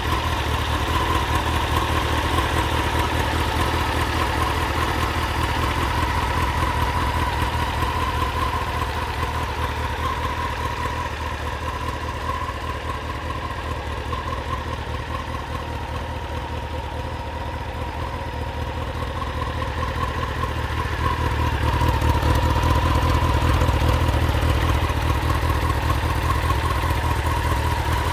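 Honda CBR900RR Fireblade's inline-four engine idling steadily, a little louder over the last six seconds or so.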